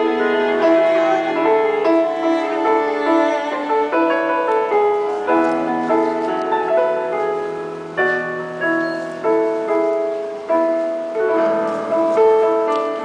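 Live piano and cello playing a slow classical piece; in the second half, piano notes strike and fade one after another.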